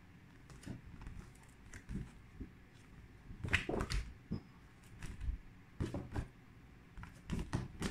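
Stiff cardboard flashcards handled and flipped, giving a series of short knocks and scrapes, the loudest pair about three and a half seconds in.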